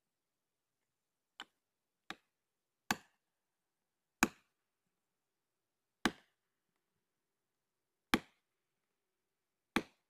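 Seven sharp axe blows struck at the foot of a standing tree, the first two lighter, the rest heavier, one to two seconds apart.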